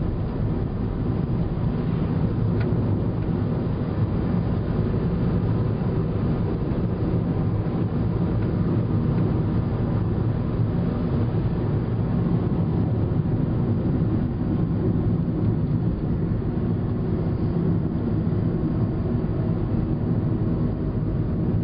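Inside a car's cabin while cruising on an asphalt highway: a steady low rumble of tyres and engine.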